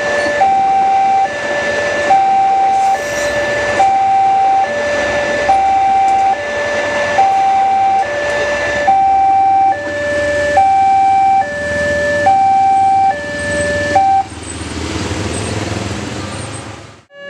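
Indonesian railway level-crossing warning alarm: an electronic two-tone siren switching back and forth between a lower and a higher tone, one full cycle a little under a second. It stops about fourteen seconds in, and a steady rushing noise follows until the sound cuts off shortly before the end.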